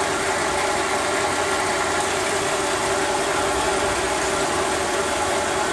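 Holden VZ Commodore's 3.6 L Alloytec V6 idling steadily, seen from underneath, while the freshly refilled 5L40E automatic transmission warms toward 30–50 degrees for its fluid-level check at the check plug.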